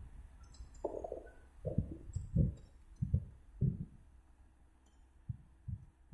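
A tractor pulling a disc harrow through a flooded paddy, its engine a faint steady hum under a run of irregular low rumbling thuds, some every half second and some a second or more apart.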